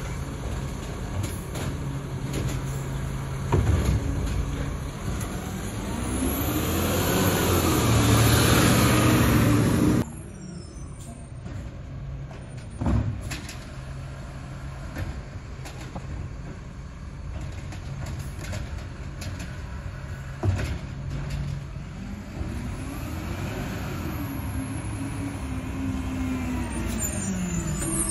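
Autocar ACX refuse truck with an Amrep HX-450 automated side loader driving up the street. Its engine runs steadily, then twice revs up and falls back as the truck pulls forward, with a few single knocks in between.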